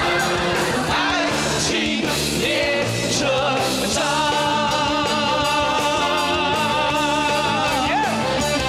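Male singer singing an upbeat pop song over a full band backing. About four seconds in he holds one long note with a slight waver, and it bends away near the end.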